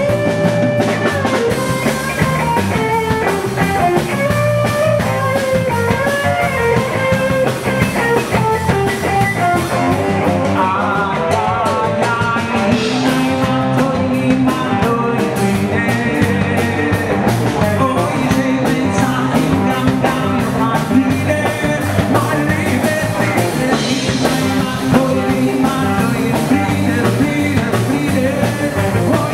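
Live band music: electric guitar playing melodic lines over a drum kit, with a man singing into a microphone.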